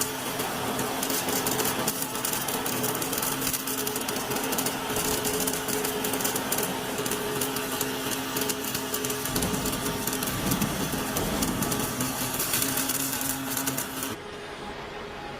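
MIG welding arc crackling steadily as an automatic welding machine's torch welds a hydraulic cylinder end cap. The arc cuts off near the end, leaving a steady low hum.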